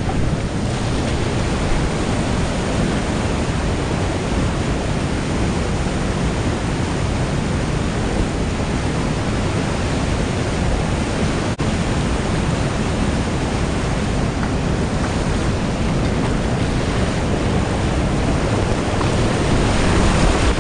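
River whitewater rapids rushing steadily and loudly, heard up close from a kayak in the current.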